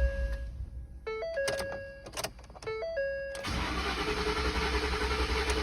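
The 2013 Ford F-150's 5.0 V8 being cranked by its starter from about three and a half seconds in, turning over steadily without firing: a long crank, no start, which the mechanic traces to a failed fuel pump driver module.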